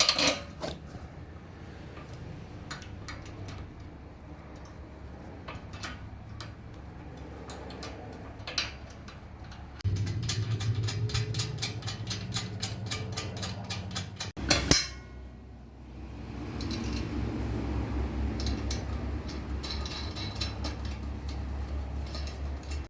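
Small steel nuts, lock washers and bolts clinking as they are threaded onto the shop press crossbeam bolts by hand, with a run of quick, even ticks from about ten seconds in. A low hum sits under the second half, and there is a sharp knock about halfway through.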